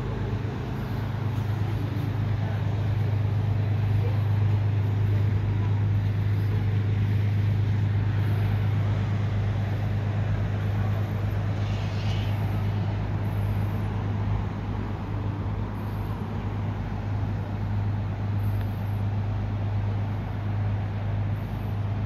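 Small fishing boat's engine running with a steady low drone as the boat pulls away across the water, a little louder a few seconds in.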